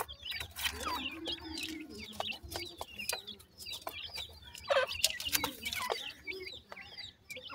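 Francolin chicks peeping constantly with many short, high chirps while they feed, with scattered sharp clicks as their bills peck at dry soil and a few lower, softer calls mixed in.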